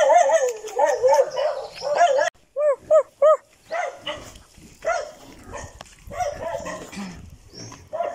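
A dog barking over and over: a quick run of barks, then three evenly spaced barks about three seconds in, then more scattered barks.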